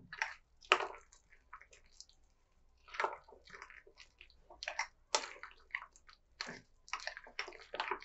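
Thick ground urad dal vada batter being worked by hand in a glass bowl: irregular wet squelches.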